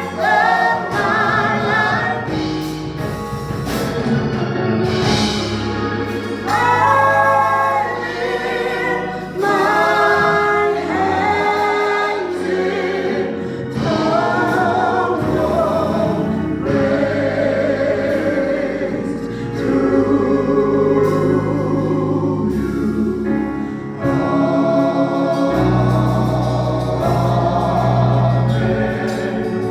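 Gospel choir singing with instrumental accompaniment, the sung lines rising and falling over sustained bass notes.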